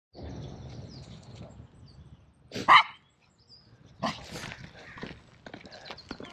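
A German Shorthaired Pointer–Chihuahua mix barking as it runs: one loud, sharp bark about two and a half seconds in and a second bark about four seconds in. Under the barks is the steady rustle of bicycle tyres on a gravel path.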